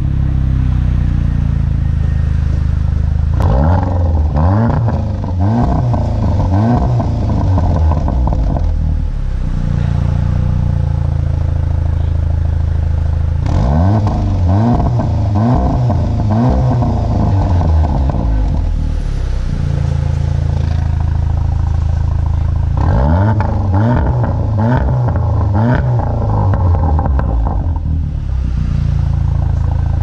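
2018 VW Golf R's turbocharged 2.0-litre four-cylinder idling through an Armytrix valved cat-back exhaust, heard at the tailpipes. It is blipped in three bursts of several quick revs each, rising and falling, and settles back to idle between them.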